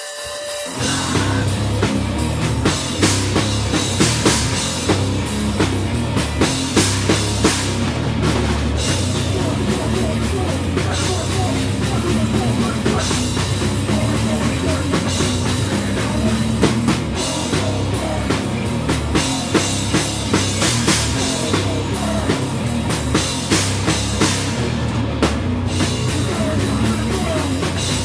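Live hardcore band playing loud and fast with electric guitar and a hard-hit drum kit, crashing in about half a second in after a near-quiet moment.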